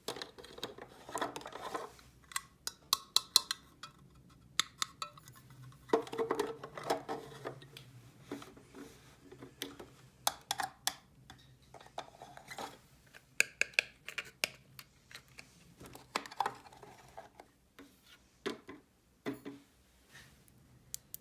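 Small plastic toy pieces clicking and clattering as they are handled and set down, in irregular clusters of sharp taps.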